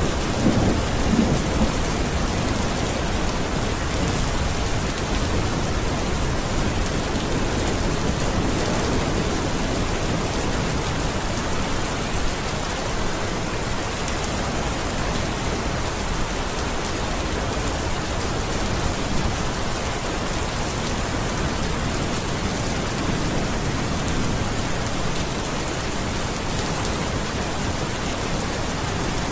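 Steady rain falling, with a low rumble of thunder dying away in the first couple of seconds.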